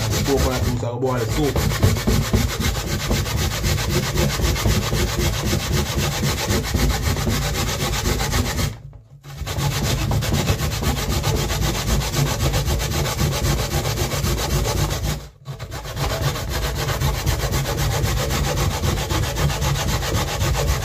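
Coconut flesh being grated by hand on a flat punched-metal grater in a wooden frame: fast, continuous back-and-forth scraping. It pauses briefly about a second in, again around nine seconds and around fifteen seconds.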